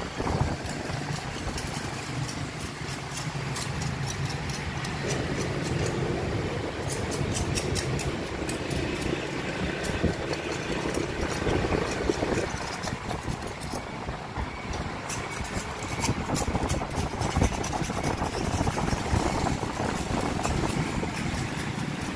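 Motorbike engines running in the street traffic beside the stall, a steady engine hum that swells and fades as bikes come and go, with light high clicking on top.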